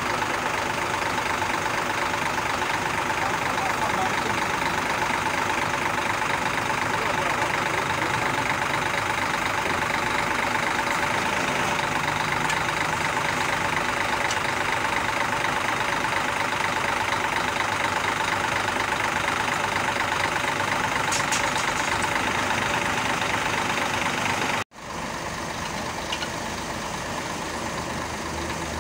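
Scania crane truck's diesel engine running steadily while the crane's stabilizer leg is set down, with a thin steady whine mixed in. After a sudden break near the end, a quieter steady engine noise follows.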